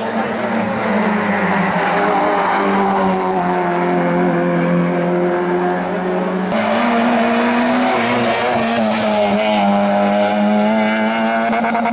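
Race car engine running hard at high revs, its pitch wavering as the car is driven up the course. The engine note changes abruptly about six and a half seconds in and then carries on just as loud.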